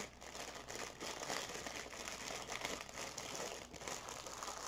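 Thin clear plastic bags of diamond-painting drills crinkling continuously as they are handled.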